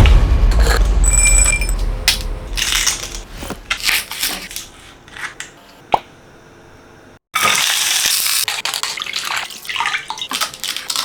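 Close-up burger-making sounds cut together: wet, crunchy food noises, a sharp click about six seconds in, then a bright crackling hiss that starts suddenly a little past seven seconds.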